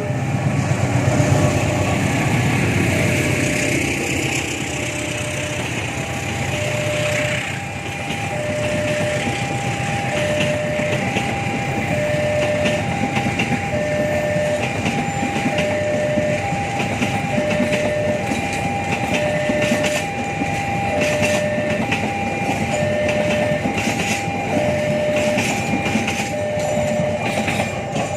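A train running past, its wheels and running noise dense and steady. Over it an electronic warning signal alternates between two tones, one higher and one lower, at about one tone a second, in the manner of a railway level-crossing alarm.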